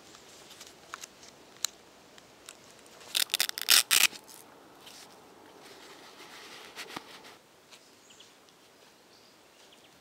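A few light metallic clicks of a snap hook being unclipped, then a hook-and-loop (Velcro) strap ripped open with a loud crackling tear about three seconds in. A softer, longer rasp of Velcro being peeled follows.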